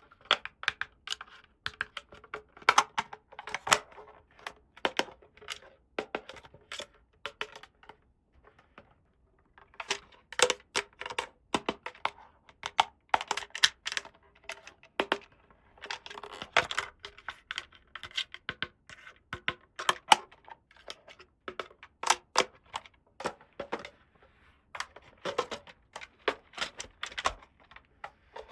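Small plastic toy pieces clicking and tapping as they are handled, in irregular runs of sharp clicks with a short pause about a third of the way through.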